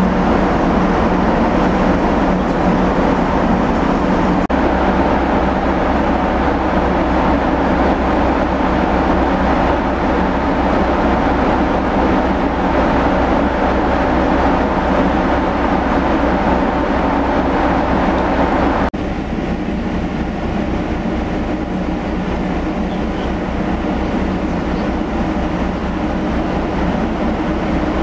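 Steady low drone of a car ferry's engines under a broad rush of air on the open deck. The sound shifts abruptly about four seconds in and turns a little quieter about nineteen seconds in.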